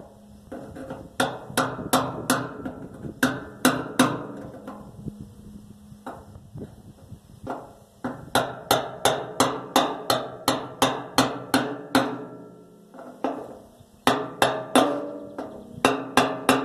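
Hammer striking a punch to drive a steel lock ring around on a 1958 Plymouth fuel tank until it seats. The blows come in quick runs of about three a second with short pauses, each one ringing briefly.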